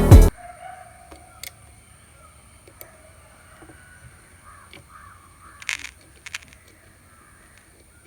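Music cuts off abruptly just after the start, leaving a quiet hiss with a steady high-pitched whine. A few short, faint bird calls come just past halfway.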